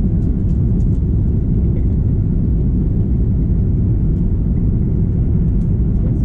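Cabin noise of an Airbus A330-300 climbing just after takeoff: the jet engines and rushing air make a steady, loud low rumble, heard from inside the cabin at a window seat over the wing.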